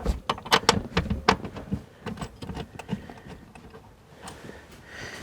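Irregular metallic clicks and clinks as seat-mounting bolts are lined up and started by hand into the seat rail mounts. The clicks come thick in the first two seconds, then thin out.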